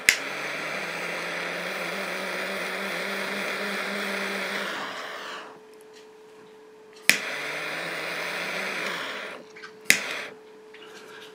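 Small gas torch burning with a steady hiss while it heats heat-shrink tubing. The flame sound stops about five seconds in; a sharp click about seven seconds in brings the hiss back for about two seconds, and another click follows near the end.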